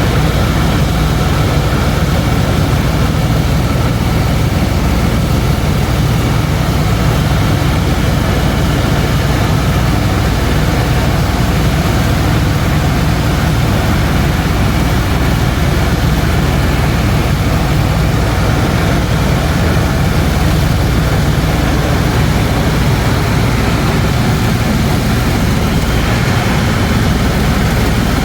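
Helicopter in flight: engine and rotor noise, loud and steady throughout.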